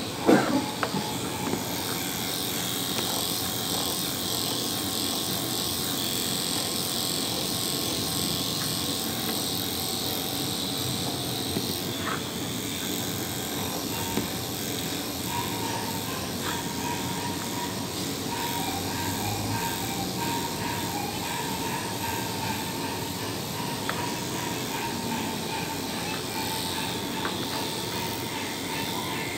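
Corded electric pet clippers running steadily as they shave a dog's coat, with a brief knock right at the start.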